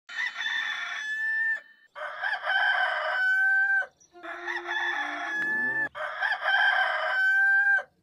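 Rooster crowing four times in a row, the Hollywood Edge "Rooster 2 Crow" stock sound effect; each cock-a-doodle-doo ends on a long held note.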